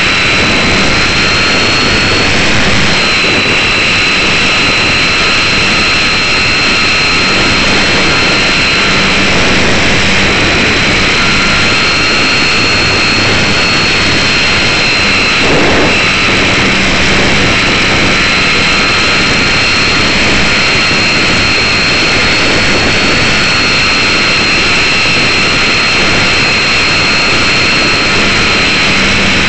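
GWS Slow Stick electric RC plane's motor and propeller running steadily in flight, heard close up through the onboard key chain camera's microphone: a constant high whine over a rushing noise of airflow.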